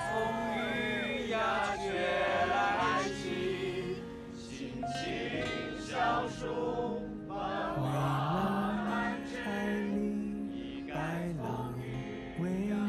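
A song with a sung vocal over sustained backing chords.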